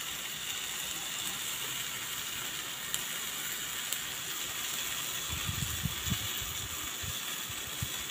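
Steady sizzle of food frying in a pan, with a few soft low knocks about five to six seconds in.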